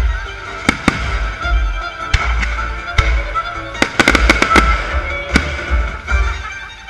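Fireworks exploding in sharp bangs, several in quick succession around the first second, near the middle and about four to five seconds in, with music playing throughout.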